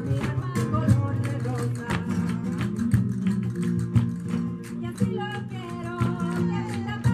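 Flamenco-style music: guitar with a singing voice and many sharp percussive beats.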